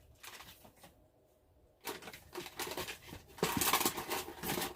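Crinkly snack packaging being handled and torn open: scattered crackles from about two seconds in, growing denser and louder past the middle.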